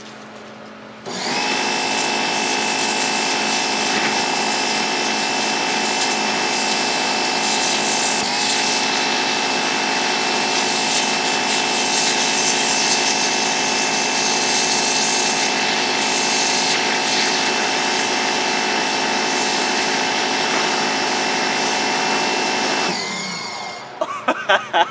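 A pressure washer rated at about 4,200 PSI, with a 0-degree red nozzle, blasting a jet of water into a pumpkin's rind to cut an eye. The machine's steady drone and the hiss of the jet start about a second in, falter briefly about a third of the way through, and wind down with a falling pitch near the end.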